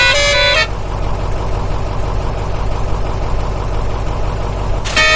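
A multi-note vehicle horn sounding in stepped tones, cutting off about half a second in. Then a steady engine-like running sound with a low hum, until the horn comes back near the end.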